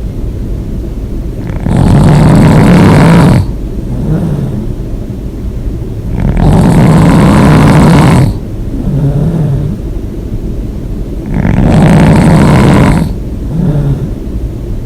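A person snoring loudly with the mouth open: three long, loud snores about every four to five seconds, with quieter breathing between them.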